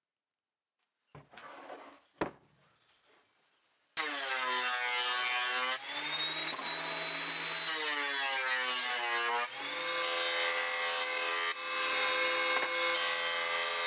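A DeWalt benchtop thickness planer starts suddenly and runs loud, cutting a board, its whine shifting in pitch as the wood feeds through the cutterhead. From about ten seconds in the sound changes to a jointer planing a board, with a lower rumble under the whine. Before the planer starts there are only a faint knock and a light click.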